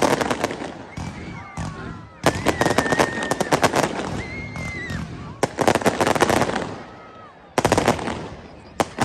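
Fireworks going off in rapid-fire volleys of sharp bangs and crackles, several bursts of about a second each with short pauses between.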